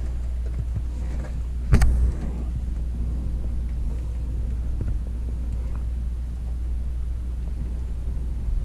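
Steady low rumble inside a glider's cockpit as it waits on a tight tow rope for takeoff, with a single sharp knock about two seconds in.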